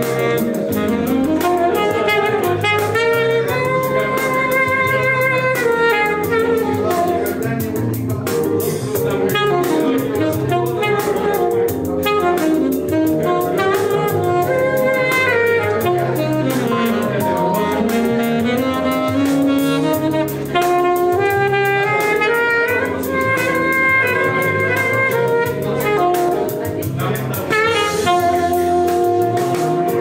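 Alto saxophone playing a flowing jazz-style melody over a backing accompaniment with a repeating bass line.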